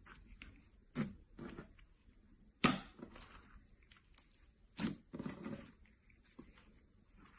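Slime being played with by hand: a series of sharp wet clicks and pops with short crackly tails, the loudest a little before the middle.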